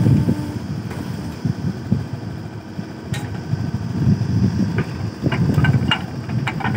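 Backhoe loader's diesel engine running with a steady low rumble while the backhoe bucket digs into dry soil. There is a sharp click about three seconds in, and a scatter of short knocks and scrapes from the bucket and earth near the end.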